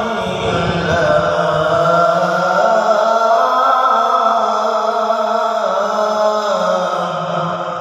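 Quran recitation (tilawah): a single voice holds one long, ornamented melismatic phrase, its pitch wavering up and down, fading near the end.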